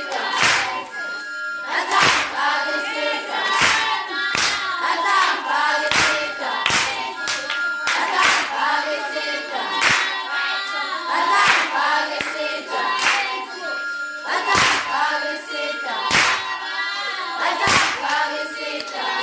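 A group of voices singing together with handclapping, marked by sharp heavy stomps about once a second from dancers' feet striking a hard floor.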